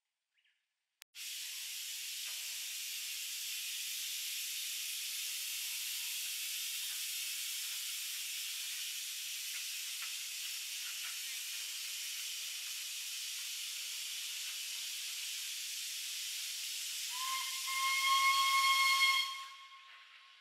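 Steam locomotive venting steam in a steady, loud hiss that starts suddenly about a second in. Near the end its steam whistle joins in with one steady tone for about two seconds, and then both stop abruptly.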